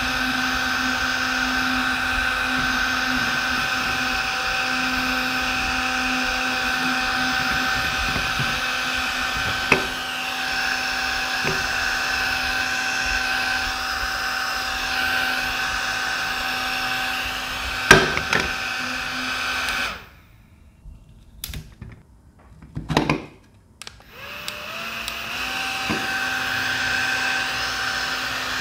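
Small battery-powered bladeless handheld fans running at full speed: a steady high motor whine over rushing air. A little past the middle the sound drops out for a few seconds with a few clicks, then a fan motor spins up with a whine rising in steps and settles at a steady pitch.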